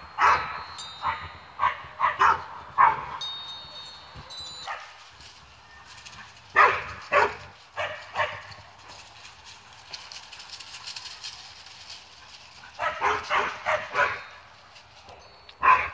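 Dogs barking in rapid flurries of several barks, pausing between them: a run of barks in the first few seconds, another about seven seconds in, and more near the end. It is territorial barking at strangers beyond the backyard fence.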